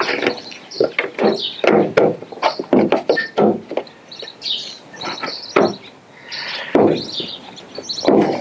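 Irregular hard plastic knocks, clicks and scraping as a gloved hand works inside the cavity behind a pickup's taillight, at the bulb socket.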